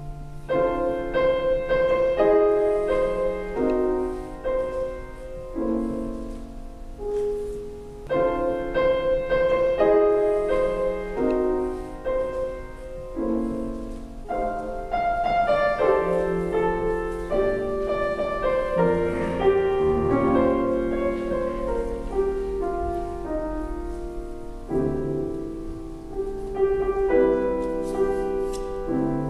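Piano music in a classical style, single notes and chords; the opening phrase comes round again about eight seconds in.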